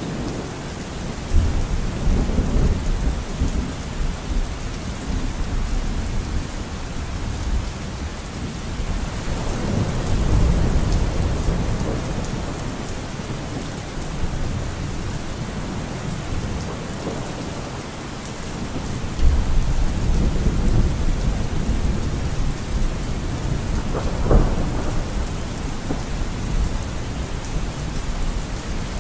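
Thunderstorm: steady rain with rolling thunder. Low rumbles swell about a second in, again about a third of the way through, and again past the middle, with a sharper clap late on.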